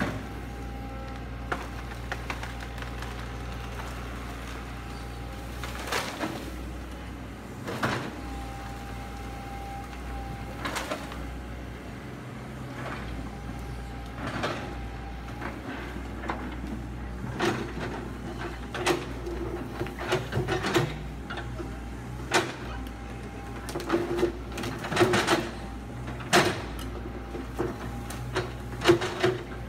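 Kobelco crawler excavator's diesel engine running steadily, with a hydraulic whine that comes and goes as the arm works. Sharp knocks and cracks of the bucket tearing into bamboo and brush, coming more often in the last third.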